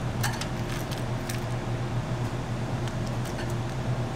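Steady low hum of kitchen machinery with a few light metallic clinks and clicks, most of them in the first second and a half.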